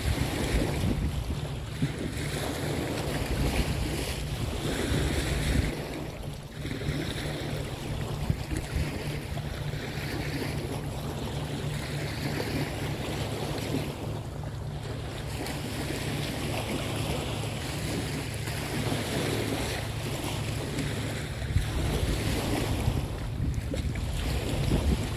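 Wind gusting across the microphone, a constant low buffeting rumble under a steady rush of wind and river water.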